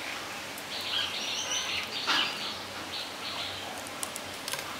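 Birds chirping in the background over the rustle of bottle gourd leaves and stems being stripped by hand, with a louder rustle or snap about two seconds in and a few light clicks near the end.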